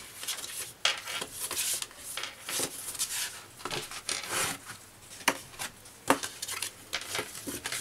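A bone folder rubbed along the score lines of a cardstock box template, making short irregular scraping strokes as it is drawn over the paper, with paper rustling as the card is turned. Two sharper clicks come about five and six seconds in.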